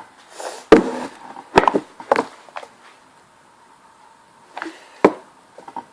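A few sharp knocks and clicks, three close together in the first couple of seconds and one more near the end, with quieter handling noise between.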